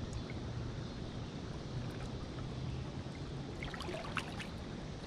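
River water lapping around a man standing chest-deep, over a steady low rumble, with a short run of small splashes about four seconds in as a catfish is released and swims off.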